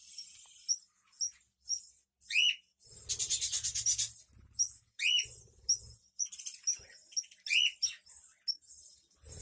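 Budgerigars chirping in a colony: many short high chirps, a few calls that slide down in pitch, and about a second of harsh, rapidly pulsing chatter about three seconds in.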